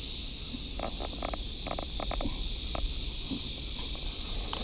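Footsteps on a grassy dirt bank: a few short, soft steps in the first three seconds. Under them run a steady high insect hiss and a low rumble.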